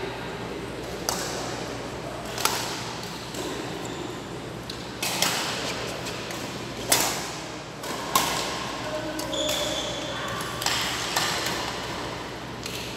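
Badminton rackets hitting a shuttlecock in a rally: about eight sharp hits, one every second or two.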